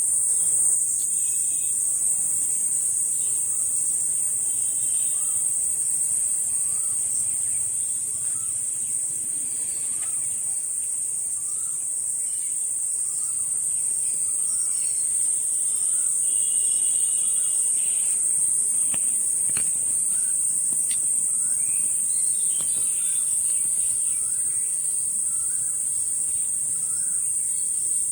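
Insect chorus: a steady, unbroken high-pitched buzz, with faint short chirps and calls scattered through it.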